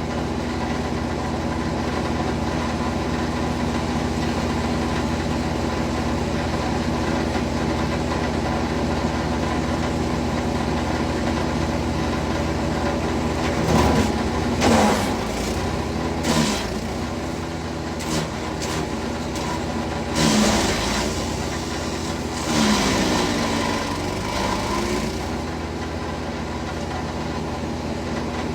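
Wood chipper's engine running steadily, then from about halfway through a series of loud noisy bursts as material is fed through, with the engine pitch dipping under the load and recovering each time.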